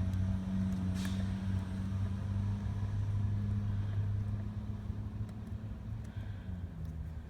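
Motor vehicle engine idling with a steady low hum, and one sharp click about a second in.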